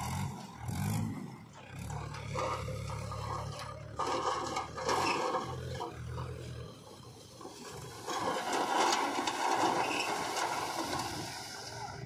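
A trailer-load of soil sliding and tumbling out of a tipping tractor trailer as its bed rises, a rough rushing scrape that swells twice, over the low running of the Mahindra 475 DI tractor's diesel engine, which fades about halfway through.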